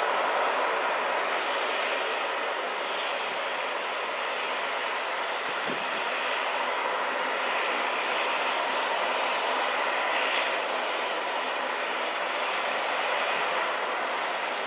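Twin Pratt & Whitney PW150A turboprop engines of a Bombardier Dash 8 Q400 running at taxi power: a steady engine and propeller noise with a faint whine.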